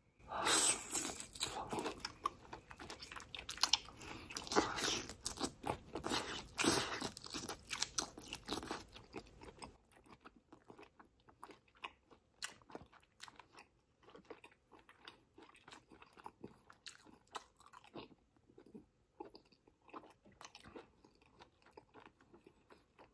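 Close-miked biting and chewing of a saucy Korean short rib: loud, dense wet chewing and crunching, thinning after about nine seconds into quieter, scattered mouth smacks and clicks.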